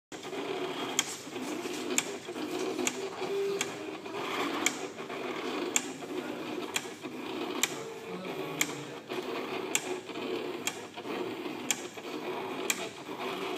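Electronic paper-cutting machine cutting a sheet of paper: a steady motor whir with sharp clicks about once a second.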